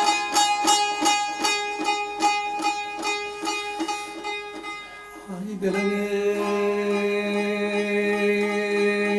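Saz (long-necked lute) strummed in quick repeated strokes that fade out over the first half. About halfway in, a man's voice comes in with a slight upward slide and holds one long sung note to the end.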